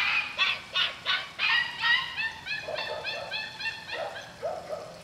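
Šarplaninac puppies about a month old, yipping and whining over and over at about three calls a second. Lower-pitched calls come in near the end.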